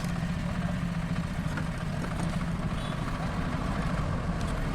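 A steady low mechanical hum with no clear rhythm or change.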